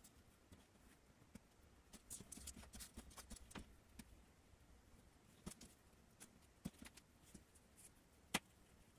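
Faint rustling and soft clicks of cotton macramé cord being handled and knotted on a tabletop, busiest a couple of seconds in, with one sharper click near the end.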